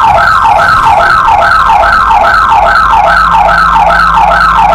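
Home security alarm siren sounding loudly: an electronic wail that sweeps quickly downward, repeated about two and a half times a second.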